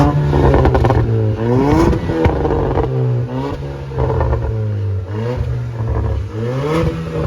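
Petrol Jaguar XF engine revved about four times through its valved aftermarket exhaust end cans, with the valves open. There are a few sharp crackles on the overrun about two seconds in, which come from it being a petrol automatic.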